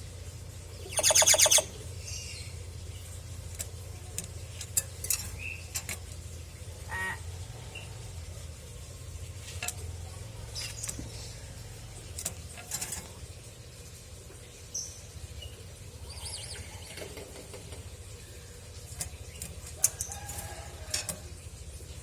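Pet hill myna giving one loud, harsh call about a second in, then scattered short clicks, chirps and whistles, over a steady low hum.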